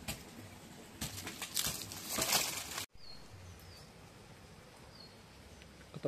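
Rustling and brushing noise for about two seconds, loudest just before it cuts off abruptly near the middle. After the cut, a quiet forest background with a few faint, short, high bird chirps.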